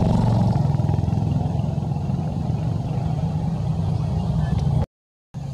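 A steady low engine rumble, like a motor vehicle running, that cuts off suddenly about five seconds in.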